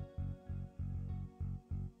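Outro music with a steady pulsing bass beat, about three beats a second, under a few held higher notes.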